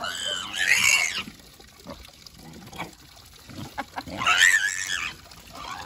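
Small black pig squealing loudly twice, each squeal about a second long, the second coming about four seconds in, as it protests being held for a bath. Water trickles from a tap into a basin underneath.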